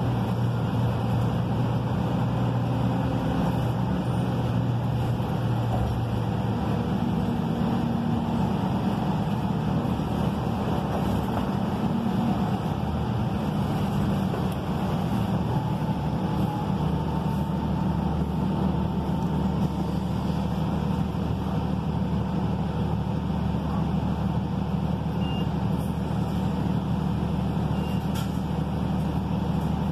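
Interior of a Gillig Low Floor transit bus on the move: its Cummins ISL9 diesel engine runs under road rumble, and the engine note shifts in pitch several times as the bus changes speed.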